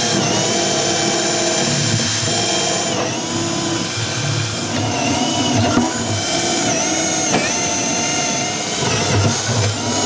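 Electric drill running steadily as it bores the mounting holes, its motor whine dipping briefly about every two seconds as the bit loads up.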